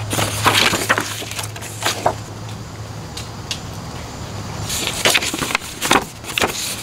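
Printed paper instruction sheets rustling and crackling as the pages are leafed through by hand, in short bursts, with a busier cluster near the end.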